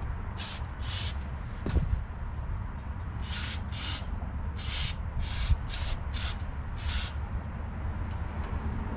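A sprayer hissing in about ten short bursts, some in quick pairs, on greasy drum brakes being degreased.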